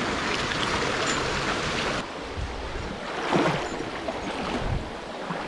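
Mountain stream water running steadily. The sound drops abruptly in level about two seconds in, and there is a brief louder surge about a second later.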